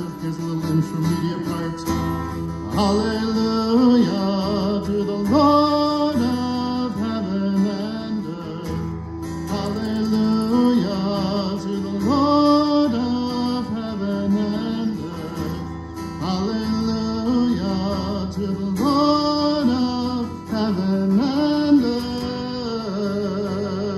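Live worship song: acoustic guitar strummed under a sung melody that moves in short repeated phrases.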